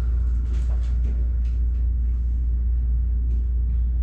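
A steady low rumble, with a few faint, irregular clicks and taps over it.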